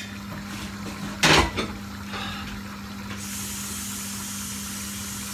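A sharp clunk about a second in, then a tap running steadily from about three seconds in: hot water rinsing the cooked rice to wash off its starch. A faint steady hum runs underneath.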